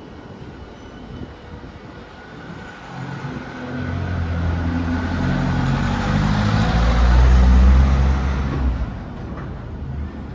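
A motor vehicle drives close past: its engine and tyre noise build over several seconds, are loudest about eight seconds in, then fall away quickly.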